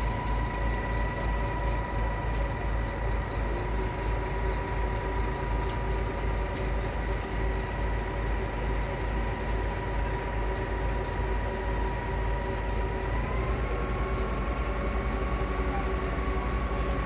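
Boom-type concrete pump truck's diesel engine running steadily, with a high steady whine over it. A second, lower tone comes in a few seconds in, and the whine rises a little in pitch about 13 seconds in.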